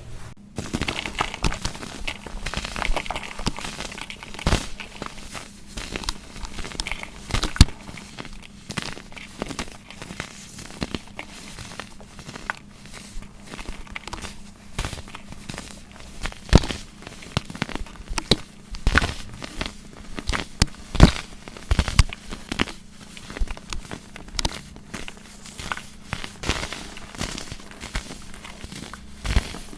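Baking soda being crushed and crumbled by hand: a dense, continuous run of crisp crunches and crackles, with louder snaps every second or two.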